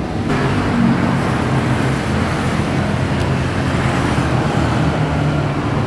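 Steady road-traffic noise: a low engine hum that drifts slightly in pitch under a broad rush.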